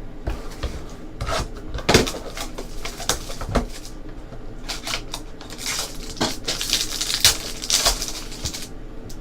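Trading cards and their packaging being handled: rustling and sliding with a scatter of small clicks and knocks.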